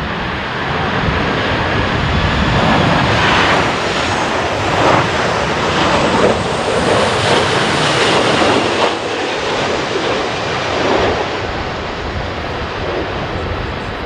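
Jet engines of a Boeing 737-800 (CFM56-7B turbofans) on final approach, passing close by: a loud, steady rush that builds over the first second or two, peaks in the middle with uneven surges, and eases off as the airliner moves on toward the runway.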